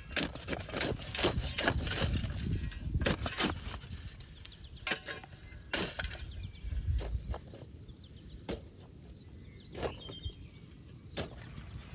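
Irregular knocks and clicks, several a second early on and sparser later, over a low outdoor rumble that dies away about seven seconds in.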